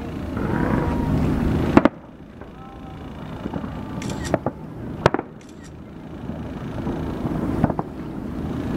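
Fireworks shells bursting in sharp bangs, the loudest about two seconds in and more near four, five and seven and a half seconds, with faint whistles from rising shells over a low steady rumble.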